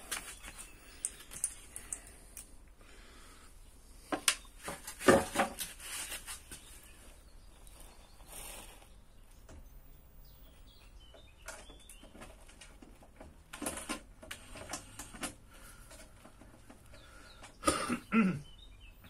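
Scattered clicks, knocks and short clatters of hands working on the black sheet-metal housing of a Bauknecht coffee machine as its panels are screwed back on, with louder clatters about four to six seconds in and again near the end. Faint bird chirps in the background.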